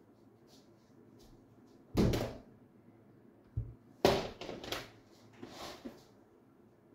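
A few knocks and thuds of things being handled and set down. There is a loud one about two seconds in, a small dull one, then a cluster of knocks from about four to six seconds in.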